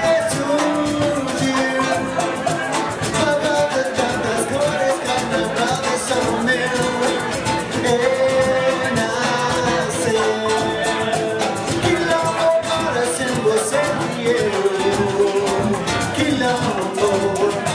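Live Latin band playing upbeat salsa-style music. Congas, timbales and a drum kit keep a busy, steady rhythm under a flute carrying a stepping melody.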